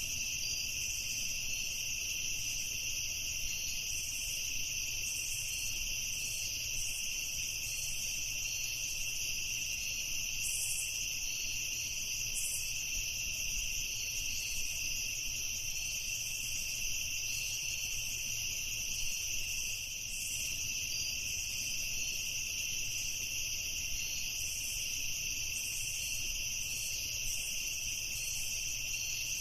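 A chorus of crickets chirping steadily in an unbroken, high-pitched trill.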